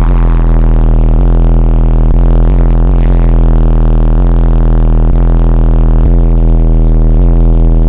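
Car audio subwoofer system in a 1989 Nissan truck playing a steady, very loud low bass tone, dipping briefly in pitch about once a second.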